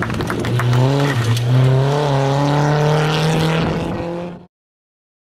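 Škoda Fabia S2000 rally car's two-litre four-cylinder engine pulling hard at high revs, its pitch climbing over the first two seconds and then holding. The sound cuts off suddenly near the end.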